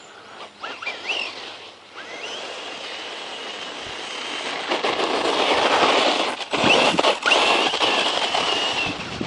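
Circuit Thrash 1/10-scale RC truck's brushless electric motor whining as it is driven, its high pitch sweeping up in short bursts of throttle, then held, over a rushing noise that grows louder about halfway through.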